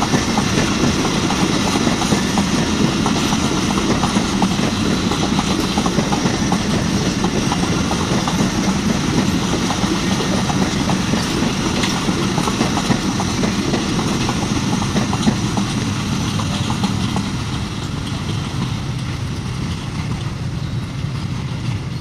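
Pakistan Railways passenger coaches rolling past on the track, a steady rumble with a rapid run of wheel knocks. It grows a little quieter over the last few seconds as the last coaches go by.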